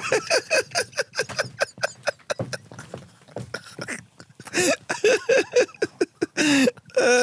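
Two men laughing hard into close microphones in quick, breathy bursts, several a second. The laughter dies down for a moment about halfway through, then starts up again.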